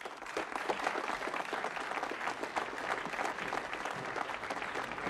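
Audience applauding, many hands clapping together at the end of a speech.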